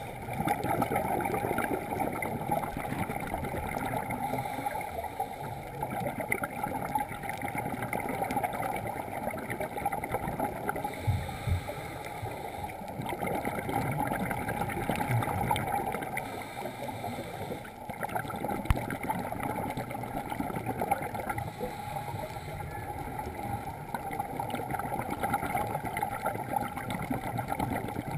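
Muffled underwater noise of scuba breathing, with exhaled regulator bubbles rushing and gurgling, heard through a GoPro's waterproof housing. A few dull knocks stand out near the middle.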